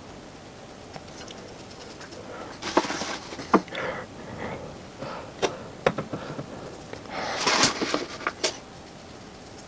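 Paintbrush dabbing and scraping sealant onto the inner lining of a bucket forge, coming in from about three seconds in as a run of short scrapes and several sharp clicks and knocks, with a longer scrape near the end.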